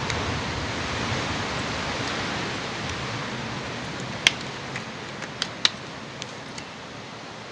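Steady hiss of wind on the microphone, fading a little, with about seven small sharp clicks and snaps between four and six and a half seconds in as gloves are pulled onto the hands.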